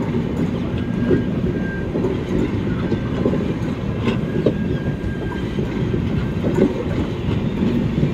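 Passenger coaches of an express train rolling past close by: a steady rumble of steel wheels on rail with irregular clickety-clack knocks, and a thin high squeal twice, briefly.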